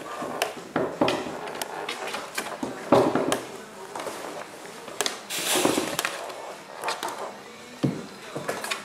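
A puppy's plywood wobble board tipping and knocking on a rubber-mat floor as the puppy climbs onto it and shifts its weight, giving irregular knocks and clatters with scuffling paws between them.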